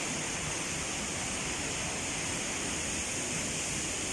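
Shallow rocky mountain stream running steadily over stones, a constant rush of water.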